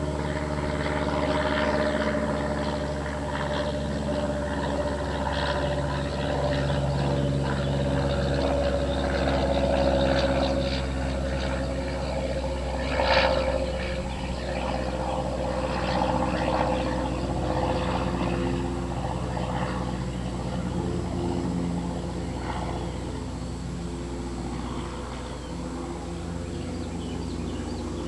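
An engine drone made of several steady tones, the highest sinking slowly in pitch.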